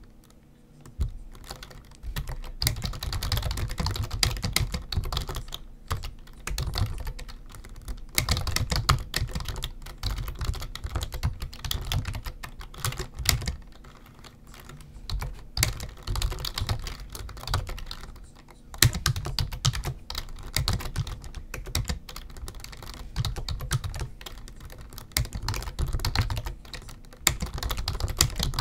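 Typing on a computer keyboard: rapid runs of key clicks in bursts, broken by short pauses.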